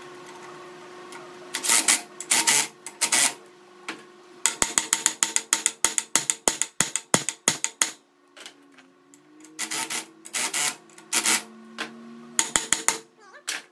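A ratchet wrench tightening the centre bolt of a flywheel puller on a Briggs & Stratton engine flywheel. It clicks in quick, even strokes of about five a second, in a long run through the middle and a short run near the end. Short bursts of metal rubbing and turning noise come in between.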